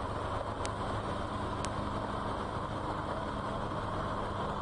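Steady drone of vehicle engines running in street traffic, with two short high ticks about a second apart near the start.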